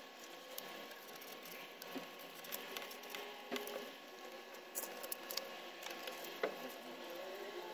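Hands handling and sliding thin paper discs over a cardboard board: soft paper rustling and scuffing with scattered light taps and clicks.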